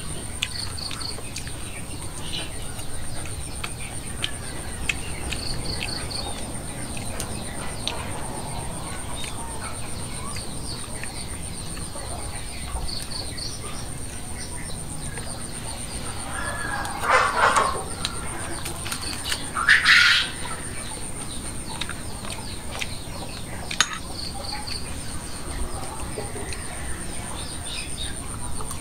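Chickens clucking, with two louder calls about two-thirds of the way in, over a steady high-pitched whine and short high chirps now and then.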